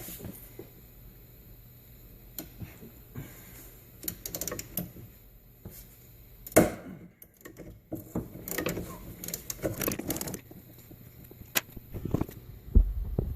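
Irregular metallic clicks and clanks of hand tools and metal parts being handled during shop work on a leaf spring's bolt. One sharper knock comes about six and a half seconds in.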